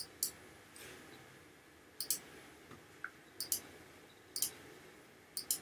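Computer mouse clicking: about five pairs of quick, sharp clicks, spaced roughly a second apart.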